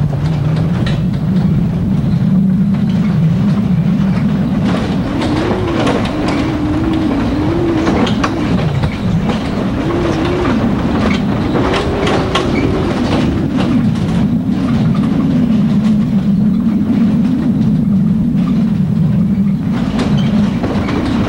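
Truck engine running steadily as it climbs a rough gravel road, its pitch rising and falling a few times with the throttle, with the body rattling and knocking over the bumps.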